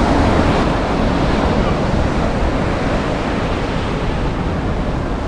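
Ocean surf washing on a beach, with strong wind buffeting the microphone.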